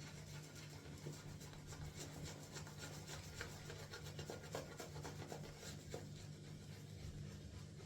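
A shaving brush working soap lather, a soft continuous rubbing and fine crackling of wet bristles and lather, over a low steady hum.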